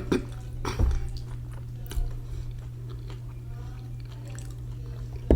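Close-miked chewing of ramen noodles, with short wet smacks near the start, about a second in, at two seconds and a sharper one near the end, over a steady low hum.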